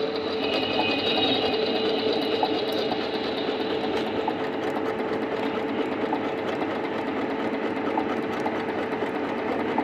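Singer C5605 computerized sewing machine running steadily at speed, its motor humming as the needle stitches a decorative pattern into fabric.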